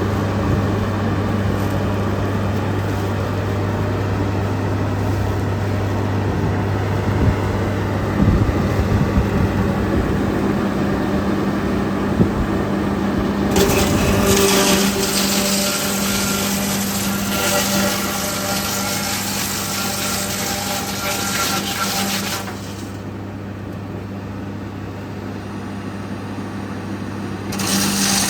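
Electric woodworking machinery running with a steady low hum while wood is worked. About halfway through the sound turns brighter and hissier, then drops in level and rises again near the end.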